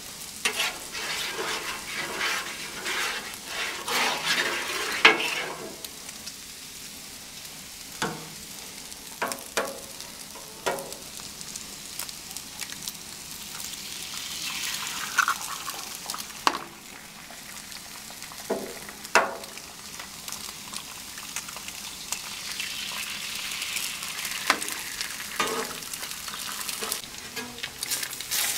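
Metal spatula scraping and tapping on a hot steel griddle top. Then eggs are cracked onto the oiled griddle and sizzle, the hiss swelling twice, among scattered sharp clicks of the spatula on the steel.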